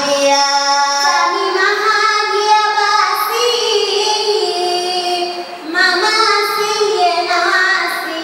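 A young girl chanting a Swahili utenzi (a traditional verse poem) into a microphone, unaccompanied, in long held notes that bend up and down, with a brief break about five and a half seconds in.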